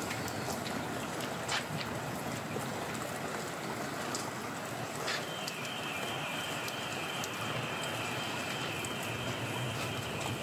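Steady hiss of a wet street outdoors, with a steady high tone that comes in about halfway through and holds.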